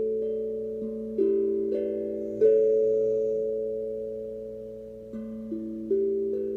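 Steel tongue drum played slowly, single notes struck one after another, each ringing on and slowly fading under the next. A few notes come in the first two and a half seconds, they ring through a pause of a couple of seconds, and more notes follow near the end.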